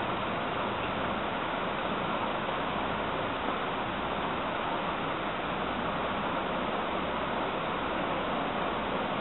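Steady, even hiss that stays unchanged throughout, with no other sound standing out.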